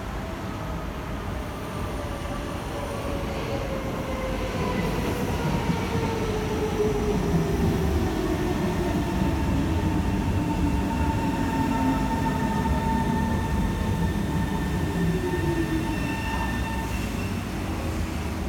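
Kawasaki C151 metro train arriving and braking, its whine gliding steadily down in pitch as it slows over the rumble of the wheels. The sound grows louder a few seconds in as the train draws alongside.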